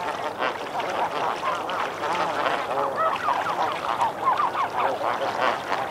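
A flock of snow geese calling continuously, many overlapping honks, with one goose close by splashing and calling in the water.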